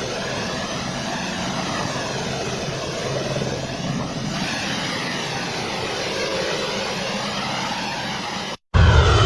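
Jet engines of a C-17 Globemaster III transport running, a steady hiss with a slow sweeping, phasing quality as the aircraft moves. It cuts off abruptly near the end, followed by a louder low rumble.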